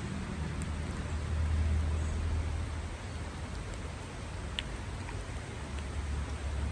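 Outdoor background noise: a steady hiss with a low rumble that swells twice.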